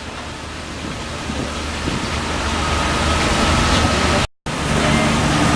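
Steady rushing noise of a moving tour tram, its tyre and wind noise building slightly, with a faint steady whine in the middle; the sound cuts out for a moment about four seconds in.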